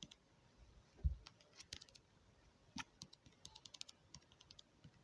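Faint computer keyboard typing and clicks: scattered keystrokes with a quick run of them a little past halfway, and one dull knock about a second in.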